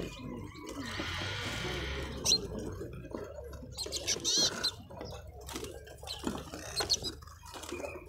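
Small caged songbirds chirping: several short high calls, with a quicker twittering run about a second in, over a low steady background hum.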